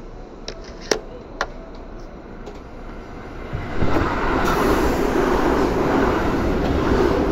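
Seibu 2000 series electric train heard from inside the car. The first part is fairly quiet with a few sharp clicks. About three and a half seconds in, the running noise swells quickly to a loud, steady rush of wheels on rail and holds there.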